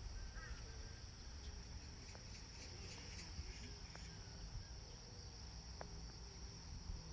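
A steady, faint, high-pitched chorus of insects shrilling, with a few faint chirps near the start.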